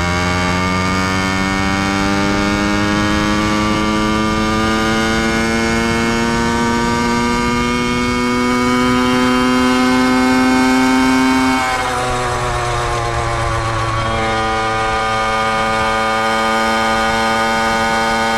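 Motorcycle engine under way, its pitch climbing slowly as it pulls for about eleven seconds. Then it drops suddenly as the throttle eases or a gear changes, and settles into a steady cruise.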